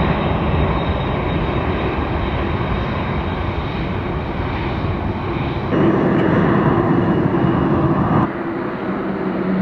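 Boeing 747-8 freighter's four jet engines running loud at high power during its takeoff. The noise steps up sharply about six seconds in and drops back a little past eight seconds.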